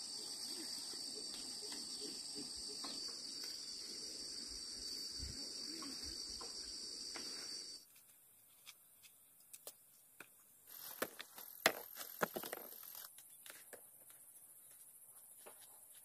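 A steady high-pitched insect chorus sounds for about the first half, then cuts off suddenly. After it, dry corn leaves and stalks rustle, with scattered clicks and a few louder knocks a little past the middle as ears of corn are handled.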